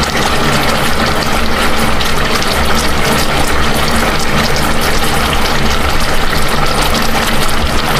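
Fish simmering in vinegar in a lid-covered pan, bubbling and hissing steadily, over a low steady hum.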